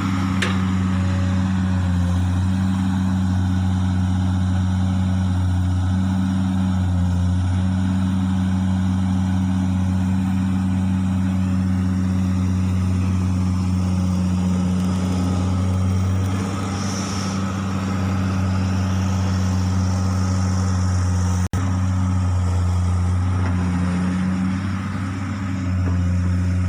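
Komatsu excavator's diesel engine running steadily as a loud, low drone, easing off briefly a little past halfway and again near the end.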